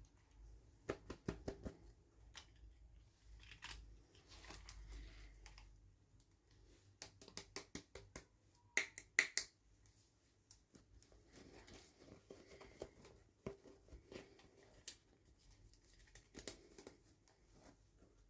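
Hands handling plastic toy packaging and doll pieces: scattered small clicks and taps with some soft rustling. A quick run of sharper clicks comes about nine seconds in.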